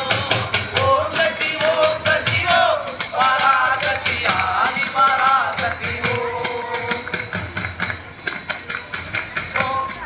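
Music: a song with a singer's voice over fast, jingling percussion.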